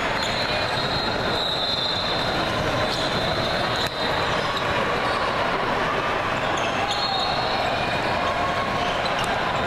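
Basketball game sounds: a ball dribbling and sneakers squeaking on the court, over the steady din of a large hall.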